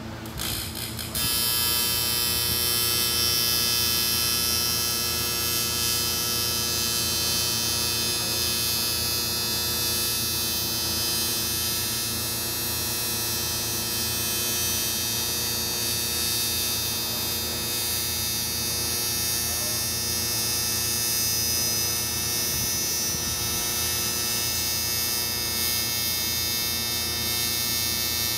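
A motor running steadily at one pitch, a loud hum with a whine on top, starting suddenly about a second in.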